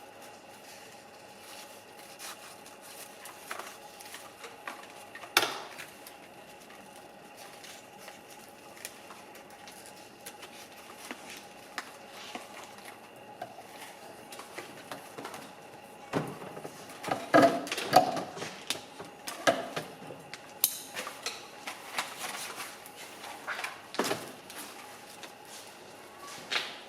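Hard objects being handled and set down on a work surface: scattered clicks and knocks, with a quick flurry of them about two-thirds of the way through, over a faint steady hum.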